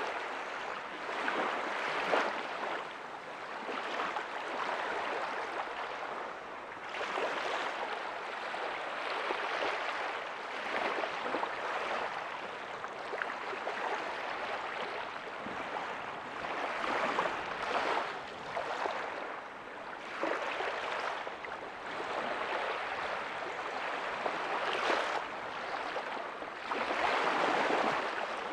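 Small ocean waves breaking softly on a beach, the hiss of surf rising and falling in surges every few seconds, one stronger wash near the end.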